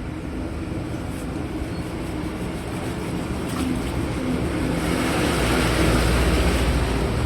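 Motor vehicle running with engine rumble and road noise, swelling steadily louder over several seconds.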